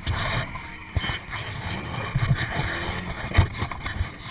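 Wind buffeting the microphone, with rubbing and a few sharp knocks as a full-face helmet is unstrapped and pulled off right beside it; the loudest knock comes about three and a half seconds in.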